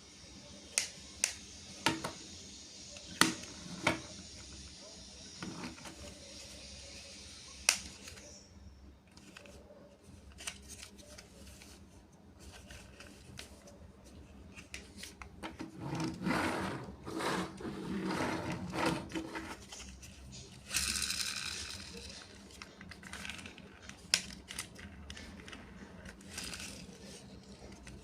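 Plastic toy parts and packaging being handled: a run of sharp clicks and taps in the first few seconds, then rustling and scraping, with a brief hiss-like crinkle a little past the middle.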